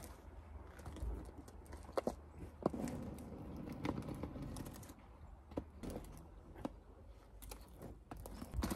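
Quad roller skates on an asphalt path: faint rolling with a few scattered, sharp clicks and knocks.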